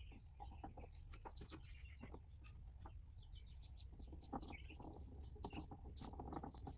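Faint birds chirping, with soft scattered clicks and taps as a super glue bottle is squeezed over a wooden workbench.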